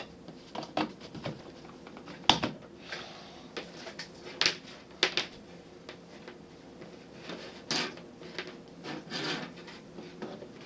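Handling clatter of a metal ATX computer power supply on a wooden table as its mains cord is fitted into the socket: scattered knocks and clicks with rubbing in between, the sharpest about two seconds in.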